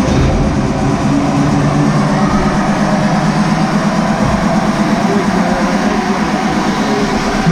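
Loud music with long held low notes that change every second or two.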